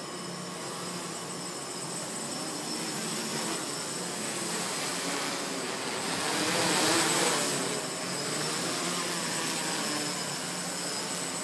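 A hexacopter's six electric motors and propellers whirring with a steady high whine, loudest as it passes close overhead about six to seven seconds in.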